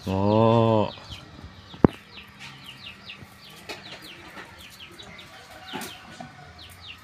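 Chickens peeping over and over, short high chirps about two or three a second. They follow a loud, short low call in the first second and a sharp click near the two-second mark.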